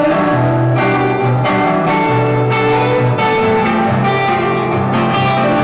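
Instrumental music led by plucked guitar, a run of held notes that change every half second or so.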